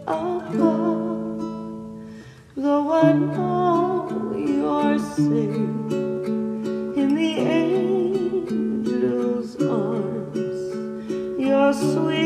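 Slow acoustic guitar ballad with long, wavering melody notes over a steady bass line. The music fades almost to a pause about two seconds in, then comes back in full.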